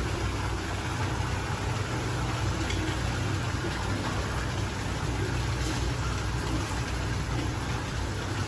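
A steady low mechanical hum, as of a motor running.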